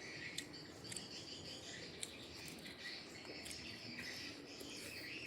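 Insects chirping steadily in the background, with a few faint sharp clicks.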